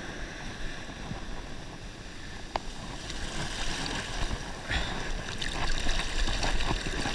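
Surf wash rushing and hissing at the water's edge, with a few small splashes, getting louder toward the end as a wave comes in.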